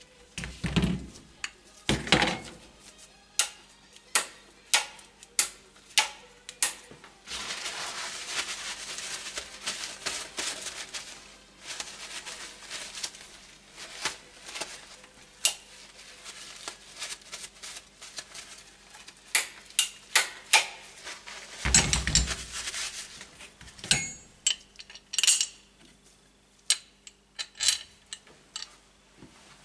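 Metal tools and parts clinking, tapping and knocking on a workbench as an aluminium motorcycle footrest plate is taken apart by hand. There are a few heavy thumps, and a stretch of continuous scraping noise in the middle.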